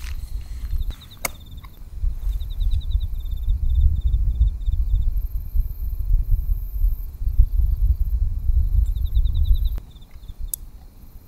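Insects trilling in short runs of rapid high chirps, over a strong, uneven low rumble that drops away about ten seconds in. A couple of sharp clicks sound, one early and one near the end.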